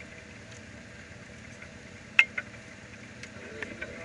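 Motorcycle engine idling steadily, with one sharp click about two seconds in, a smaller one just after, and a few light ticks near the end.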